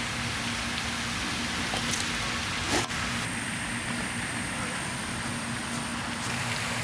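Steady outdoor background noise with a faint low hum, like distant road traffic, and a single sharp click about three seconds in.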